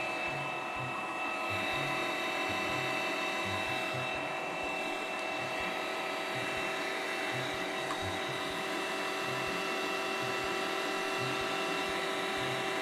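Electric meat grinder's motor running with a steady whine under load as it grinds pink slime and pushes it out through the plate.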